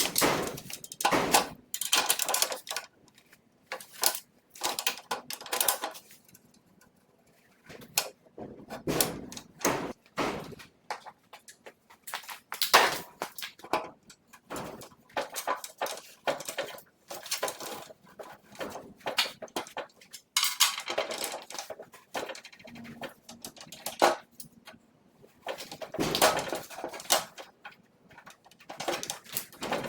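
Metal tools and parts clinking, clanking and knocking in irregular bursts, with a short quiet pause about six seconds in.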